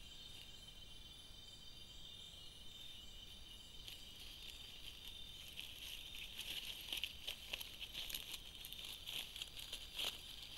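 A steady high-pitched night chorus of insects, joined from about four seconds in by irregular crackling and rustling in dry leaf litter as a Sunda pangolin walks through it.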